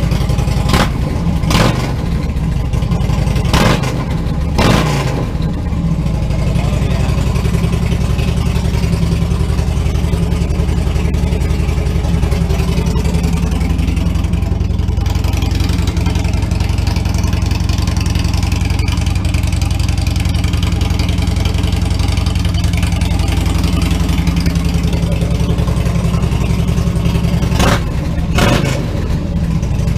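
Harley-Davidson Twin Cam 103 V-twin running through a TBR Comp-S exhaust on its first start after a new tune and air cleaner. It idles steadily, with several short throttle blips in the first five seconds and two more near the end.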